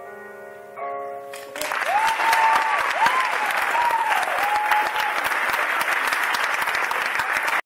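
The accompaniment's last held chord dies away, with one more chord struck about a second in; then the audience starts applauding at about one and a half seconds, with whooping cheers over the clapping for the next few seconds. The applause cuts off suddenly at the end.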